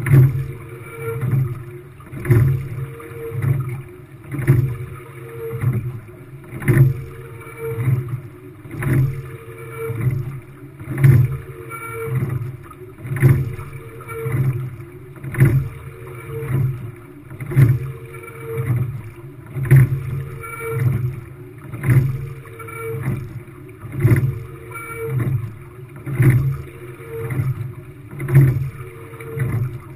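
Quad sculling boat rowing at a steady rate, about one stroke every two seconds: each stroke brings a sharp knock of the oars in their oarlocks and a swell of water rushing along the hull, with smaller knocks between.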